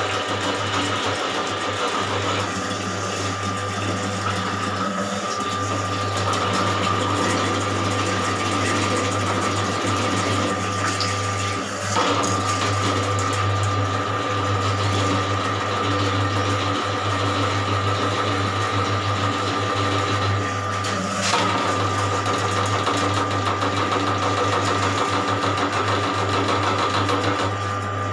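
Electric drain-cleaning machine running steadily, its motor humming as it spins a spiral cable into a clogged bathroom drain line, with a sharp knock about twelve seconds in and again about twenty-one seconds in.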